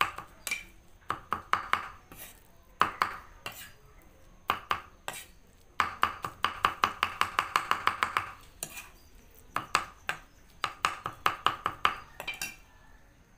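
Meat cleaver chopping on a thick round wooden chopping block, mincing food in runs of quick chops with short pauses between them, the longest and fastest run, about seven chops a second, in the middle.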